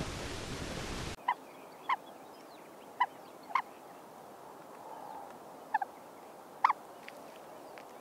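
Short, sharp bird calls, about seven in all, some single and some in quick pairs, spaced irregularly a second or so apart. They sound over a quiet outdoor background that begins after a steady outdoor hiss cuts off about a second in.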